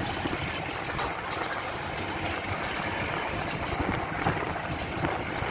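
A vehicle driving along a rough dirt road, heard from on board: engine running with a steady rumble, and a few brief rattles about a second in.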